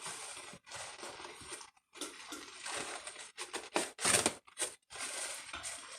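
Omelette toppings (chopped vegetables, cheese and turkey) being handled and scattered onto the eggs in the pan: irregular rustling and crinkling in short on-and-off patches, with a few sharper clicks, the loudest about four seconds in.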